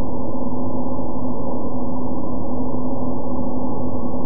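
CNC vertical milling machine running: a steady hum with a constant low tone that never changes, with no cutting chatter or impacts.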